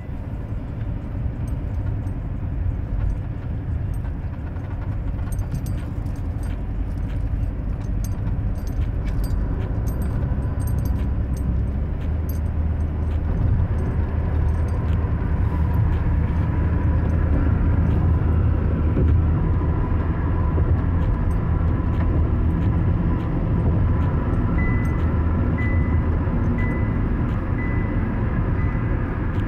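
Road noise inside a moving car's cabin: a steady low rumble of tyres and engine that grows louder about halfway through as the car picks up speed. There are light clicks in the first half, and a faint short beep repeats about once a second near the end.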